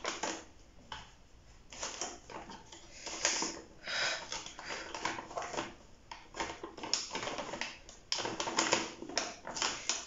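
Plastic snack packet crinkling, with irregular crackles and clicks, as the jaws of a handheld mini heat sealer are clamped on its open top and drawn along to seal it. The crackling is busiest near the end.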